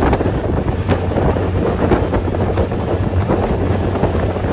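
Wind buffeting the microphone on a small aluminium fishing boat under way, over a steady low drone from the boat's outboard motor.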